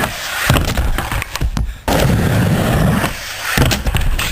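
Skateboard wheels rumbling on a mini ramp, with several sharp slams of the board and rider hitting the ramp as the skater falls.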